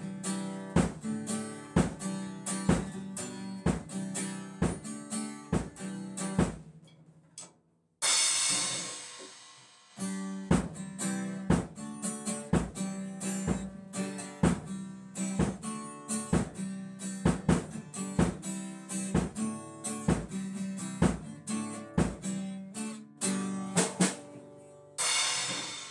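Acoustic guitar strummed in a steady rhythm with drum hits, stopping for a moment about seven seconds in. A crash cymbal rings out and fades at about eight seconds, and again near the end.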